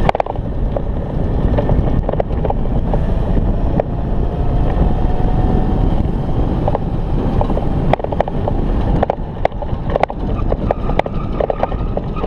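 Electric scooter riding at speed under full power: wind buffeting the microphone over tyre rumble, with a faint whine from its over-volted 1000-watt chain-drive motor that rises slowly as it speeds up, and scattered rattling clicks.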